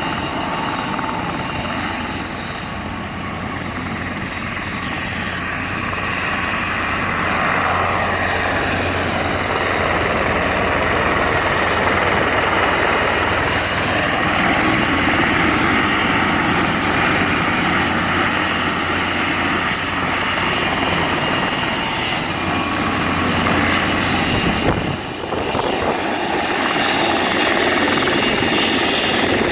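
Mosquito XET single-seat turbine helicopter in flight, its turbine and rotor running steadily with a constant high whine over a dense rush of noise. The sound swells over the first several seconds and dips briefly near the end.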